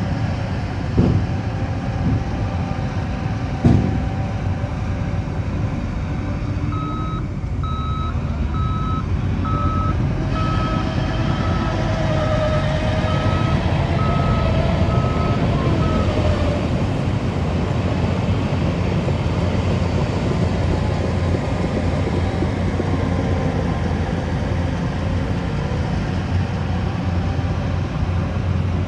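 Heavy construction machine's diesel engine running steadily, with its reversing alarm giving a string of high beeps, about three every two seconds, for around nine seconds from some seven seconds in. Two sharp knocks in the first few seconds.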